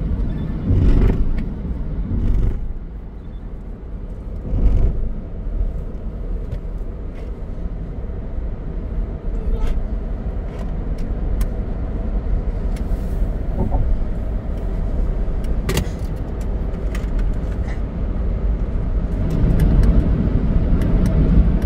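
Steady road and tyre noise with engine drone heard from inside a Kia car cruising at about 80 km/h, with a few louder low thumps in the first five seconds.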